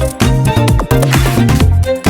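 Background music: an upbeat dance track with a steady beat and bass line.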